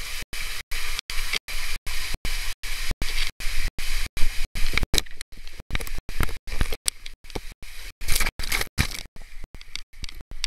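Water rushing and hissing through an enclosed tube water slide as a rider slides down it, chopped by brief regular dropouts about four times a second. The splashing gets brighter and louder near the end as the rider shoots out into the pool.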